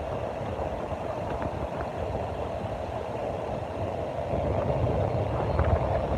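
Steady sea surf with wind rumbling on the microphone, growing a little louder near the end.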